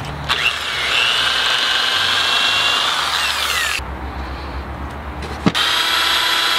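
Corded electric drill boring 3/8-inch dowel holes through a metal doweling jig into pressure-treated wood. It runs with a high whine for about three and a half seconds, stops while the jig is moved, then a sharp knock and it runs again.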